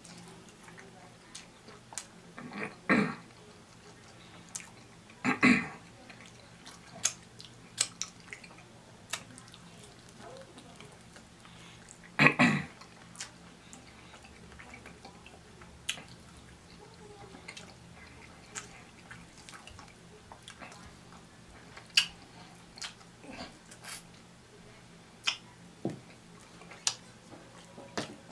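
Close-up eating of fried chicken wings: chewing and wet mouth clicks scattered throughout, with three louder, longer mouth sounds about 3, 5.5 and 12 seconds in.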